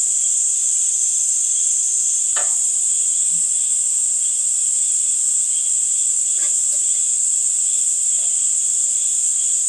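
Steady, high-pitched insect chorus, with a weaker pulsing note a little lower. A few faint clicks at about two and a half and six and a half seconds in.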